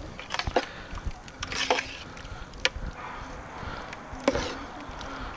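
A steel ladle stirring thick gravy and chicken pieces in a large steel pot, scraping along the pot and knocking against it about four times.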